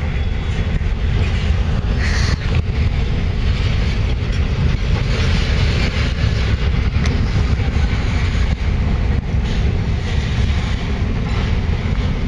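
Ferromex freight train's open hopper and gondola cars rolling past, their steel wheels on the rails making a steady, loud rolling noise.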